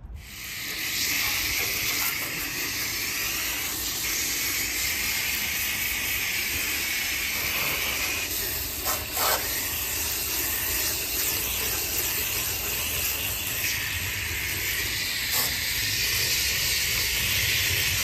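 Garden hose spray nozzle jetting water through a heat pump's condenser coil from the inside, rinsing off foamed coil cleaner: a steady hiss that shifts in tone a few times as the spray moves over the coil.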